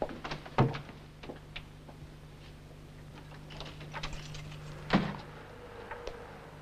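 Door sounds: a door shutting with a thump about half a second in, a few lighter knocks, then a run of clicks and another heavy door thump about five seconds in, over a steady low hum.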